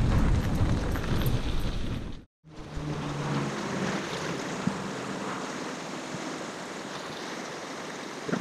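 Wind buffeting the microphone, loud and rumbling for about two seconds. After an abrupt cut, a softer steady rushing outdoor noise follows.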